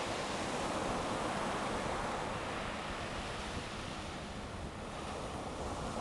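Ocean surf washing steadily on a sandy beach, with wind rumbling on the microphone.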